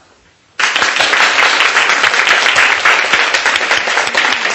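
Applause: several pairs of hands clapping, starting suddenly about half a second in and running steadily at an even level.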